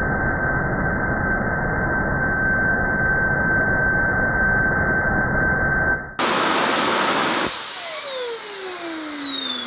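Small turbojet engine running with a steady whine, first muffled and dull. About six seconds in it is heard full and bright with a high turbine whine. About a second and a half later the combustion noise cuts off abruptly, and the whine falls steadily in pitch as the turbine spools down after shutdown.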